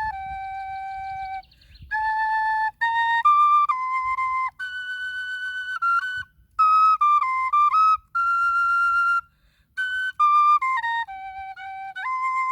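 Handmade svirel, a folk end-blown flute, playing a slow melody note by note, with short breath pauses between phrases, the longest near the middle.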